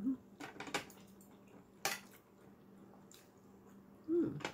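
Wet mouth clicks and smacks of a person eating boiled seafood, a few sharp ones spread out, with a short hummed "mm" at the start and another, falling in pitch, about four seconds in.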